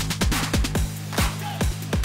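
Background electronic music with a heavy, deep kick-drum beat over sustained synth tones.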